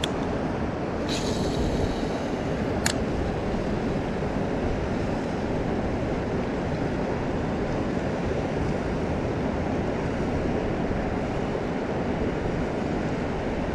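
Steady rushing of river water flowing past, an even roar with most of its weight low. About a second in comes a short high rattle, and near three seconds a sharp click.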